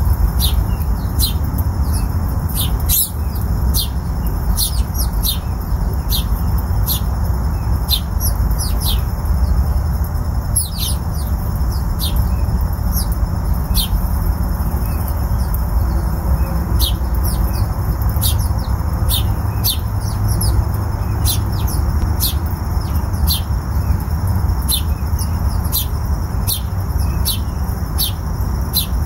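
Bird chirping over and over: short, high, downward-sliding chirps, several a second, over a steady low rumble.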